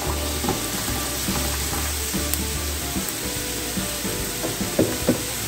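Chopped green beans tipped into a nonstick wok of diced onion and garlic frying in oil, which sizzles steadily, with a few light clicks.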